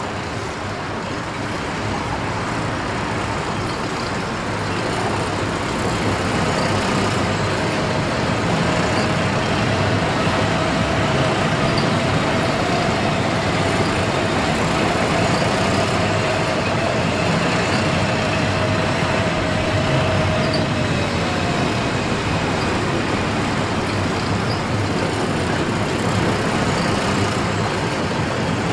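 Pair of ÖBB class 1020 electric locomotives running through a yard with a freight train, giving a steady rumbling noise. A held whine comes in after a few seconds, rises slightly and stops about three-quarters of the way through.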